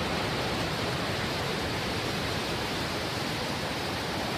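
Steady, even roar of the Falcon 9 first stage's nine Merlin engines during ascent, shortly before Max Q.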